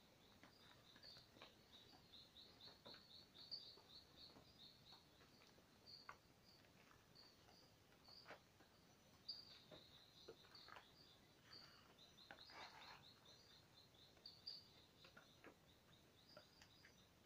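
Faint bird chirping: quick runs of short high notes repeated over and over, with scattered soft clicks and taps.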